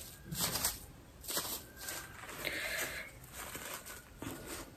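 Damp makeup blending sponge squeezed in the hand to press the water out: a few soft, short squishing rustles.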